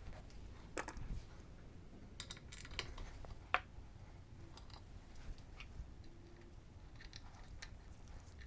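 Scattered light clicks and taps of hand tools and small metal parts being handled during engine work, with one sharper click about three and a half seconds in.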